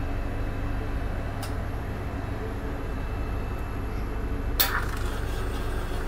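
Steady low hum of machinery running in the food van: the cane juice machine just switched on, over the idling van engine. A sharp clack about four and a half seconds in, and a faint click near the start.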